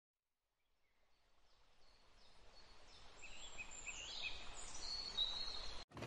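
Outdoor nature ambience fading in from silence: a steady background hiss with birds chirping, a run of short calls from about halfway through. It cuts off abruptly just before the end.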